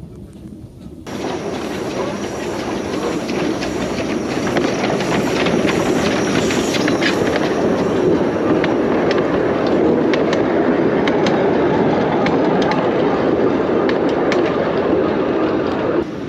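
Tourist train running: a steady rumble of rolling wheels with scattered clicks and rattles. It starts suddenly about a second in, grows a little louder, and cuts off suddenly near the end.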